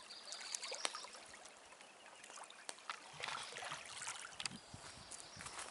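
Lake water lapping and trickling at the shore, with scattered light clicks. From about halfway through, soft footsteps on a gravel beach join in.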